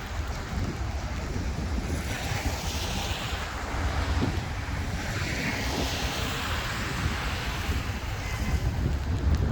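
Wind buffeting the microphone with a heavy low rumble, over a steady rushing noise that swells and fades every second or two.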